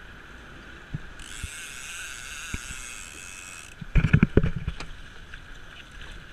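Fishing reel on a big-game rod giving a fast ratcheting buzz for about two and a half seconds while a sailfish is fought to the boat. About four seconds in comes a cluster of loud knocks and thumps as the fish is grabbed at the boat's side.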